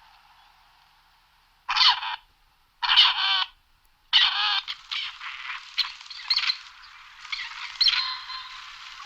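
Grey partridge calling: three separate calls about two, three and four seconds in, then a longer run of quicker call notes.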